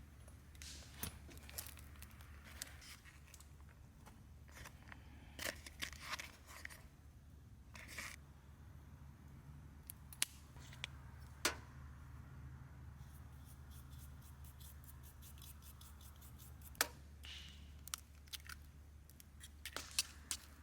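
Scattered light clicks, snips and short rustles of small objects being handled close by, over a steady low hum.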